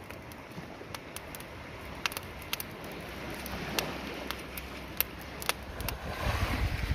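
Driftwood and dry brush burning in an open beach fire, crackling with irregular sharp pops over a steady hiss. Near the end a louder rushing sound with a low rumble comes in.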